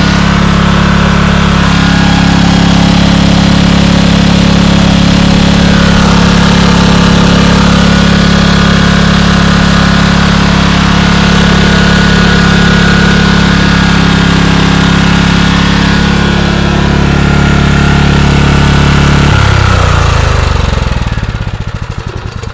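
Generac 4000 W portable generator's engine running at a steady governed speed, then switched off at its kill switch: about 19 seconds in, the engine note drops and it coasts down to a stop.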